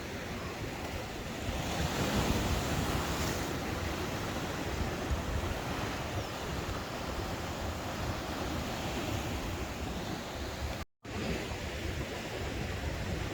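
Ocean surf washing in, mixed with wind on the microphone. The sound swells louder about two seconds in, and it cuts out for a split second near the end.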